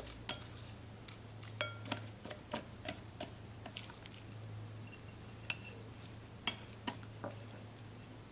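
Chopsticks tapping and scraping against a ceramic bowl in irregular clicks, some with a short ringing note, as seasoning is worked over a salmon fillet. A low steady hum runs underneath.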